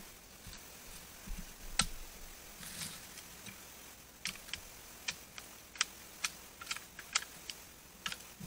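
Scattered sharp clicks and crackles of dry leaves and twigs, one louder snap about two seconds in, then a quick run of about a dozen light cracks in the second half.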